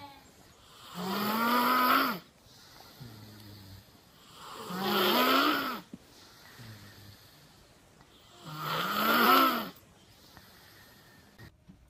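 A sleeping young child snoring loudly, three long pitched snores about four seconds apart, with softer breaths in between.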